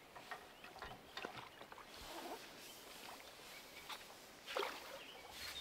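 Faint, scattered small splashes and patters of a hooked carp thrashing at the water's surface as it is drawn into a landing net.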